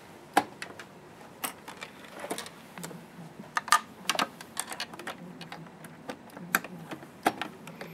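Irregular small clicks and taps of plastic and metal as the presser foot on a Juki F600 sewing machine is changed, the open toe foot being fitted to the foot holder.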